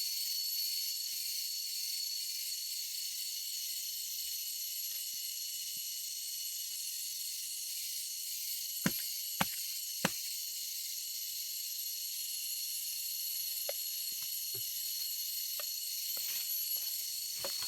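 Steady high-pitched insect chorus, with three sharp knocks in quick succession about nine to ten seconds in.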